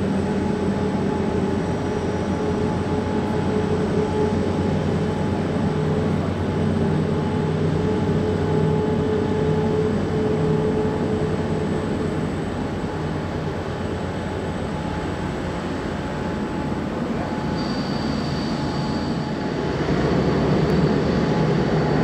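Boeing 787-8 airliner's Rolls-Royce Trent 1000 turbofans running at taxi power as it rolls past. The engines give a steady rumble with a few held tones. About two-thirds through, a thin high whine joins in, and near the end the sound grows louder.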